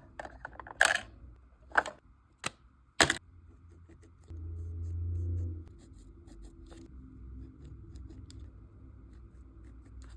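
Small plastic miniature toys being handled and set in place, with four sharp clicks in the first three seconds and lighter ticks after. A low hum swells for about a second and a half midway.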